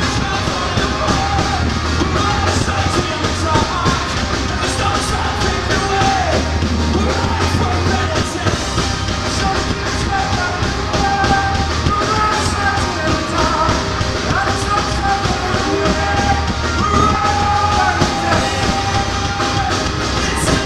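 Live rock band playing loud, with heavy bass, drums and a melodic lead line over it, heard from among the audience.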